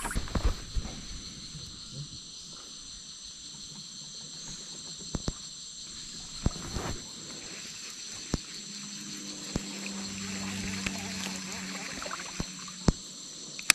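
Steady, high-pitched chorus of insects, with several sharp knocks or clicks scattered through it and a faint low hum partway through.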